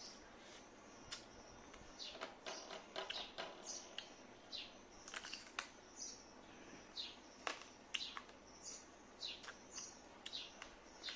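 Birds chirping: many short, high chirps, some sweeping downward, repeated every second or so, with a few sharp clicks among them.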